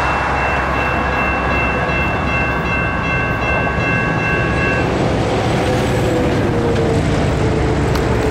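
Electronic railroad crossing bell ringing as the gates lift after a train has cleared, stopping suddenly about five seconds in at the end of the crossing activation. Steady road traffic noise runs underneath.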